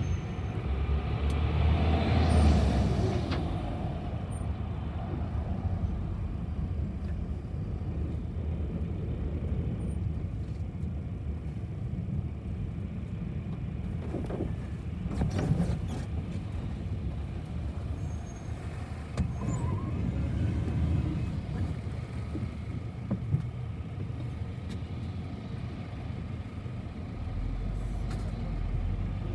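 City bus in motion, heard from on board: a steady low engine and road rumble, with a brief hiss about two seconds in and a few short knocks around the middle.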